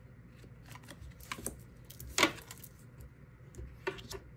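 Oracle cards being drawn from the deck and laid down on a wooden tabletop: a few light card clicks and taps, the sharpest about two seconds in.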